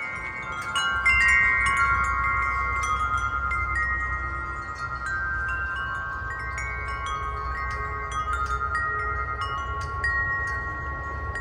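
Wind chimes ringing in a gust of wind: many overlapping struck notes that ring on and blend, loudest about a second in. A low wind rumble runs underneath.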